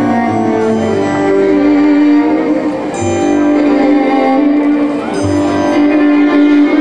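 Polish folk dance music led by fiddle, with held melody notes over a low bass note that recurs every two seconds or so.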